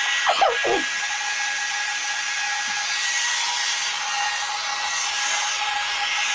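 Electric air pump running steadily, blowing air to inflate a Bestway airbed, with a steady hum. A short falling squeak sounds about half a second in.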